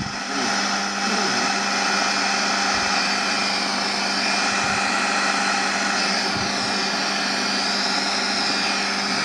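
Homemade regenerative shortwave radio receiver on its 12–18 MHz coil, giving a steady rush of static with a constant hum through its loudspeaker. About six seconds in a faint whistle comes in and wavers in pitch as the tuning is turned.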